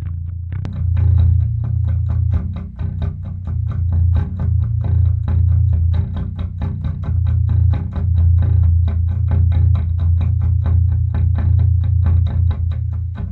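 Electric bass played through a Mesa Engineering bass cabinet: a steady run of evenly picked low notes. It is picked up first by two pencil microphones at the cabinet, then by a single room microphone.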